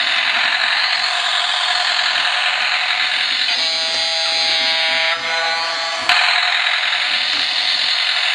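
Bump-and-go toy cruise ship running, making a steady harsh buzzing hiss. A pitched tone sounds over it from about three and a half seconds in and cuts off with a click at about six seconds.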